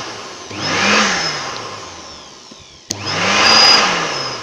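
Electric blower (1000 W) switched on in short bursts, its motor spinning up and winding back down each time. A burst starts about half a second in and another about three seconds in, forcing air through a motorcycle cylinder head's port to test whether the valves leak.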